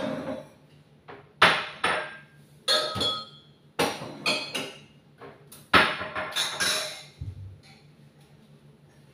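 Kitchen clatter: a run of about a dozen sharp knocks and clinks of glassware and dishes being handled and set down on a counter, with a duller thud near the end.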